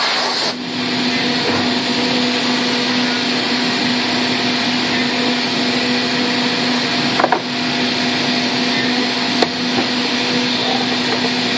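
5-axis CNC milling machine running a part: a steady machine hum under a loud, even hiss, with two brief knocks about seven and nine and a half seconds in.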